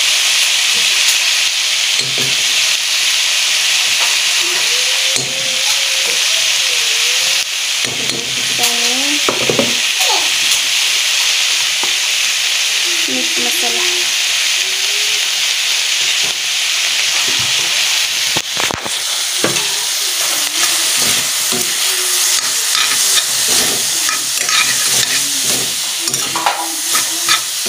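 Fiddlehead ferns, tomatoes and spice paste sizzling in a hot metal pot while a metal spoon stirs and scrapes against the pot. There are intermittent clinks and squeaky scrapes over a steady frying hiss.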